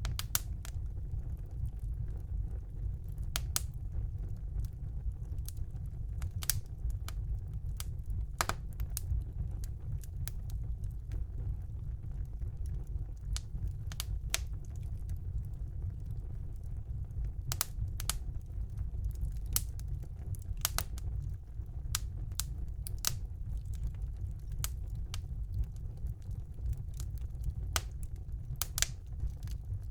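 Wood fire burning in a fireplace: a steady low rumble of the flames with sharp, irregular crackles and pops, roughly one every second or so.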